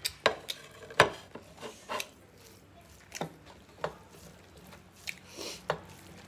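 Eating sounds of two people eating rice and curry by hand from steel plates: a string of sharp, wet clicks and smacks from chewing and fingers mixing rice on the plates, about ten in six seconds, the loudest about a second in.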